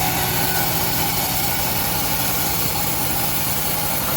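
Homemade engine-driven bandsaw running steadily, a constant mechanical drone with a faint steady whine.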